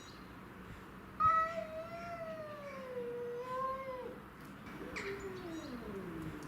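Domestic cat yowling in two long drawn-out calls. The first starts about a second in and sinks slowly in pitch; the second, near the end, slides lower still.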